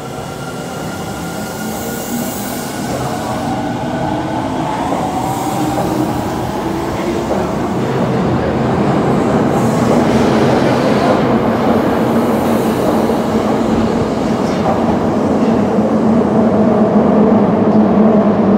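Osaka Metro Tanimachi Line subway train pulling out of the station. The motor whine rises in pitch as it accelerates, and the wheel and rail noise grows steadily louder as the cars pass.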